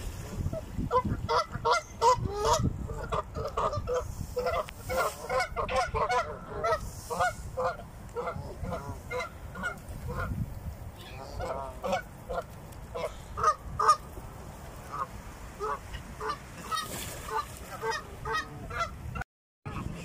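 Canada geese honking: many short calls overlapping and following one another, thickest in the first half and sparser later. The sound cuts out for a moment near the end.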